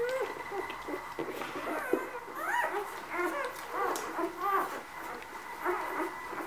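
Newborn puppies squeaking and whimpering: many short, high cries that rise and fall in pitch, several overlapping.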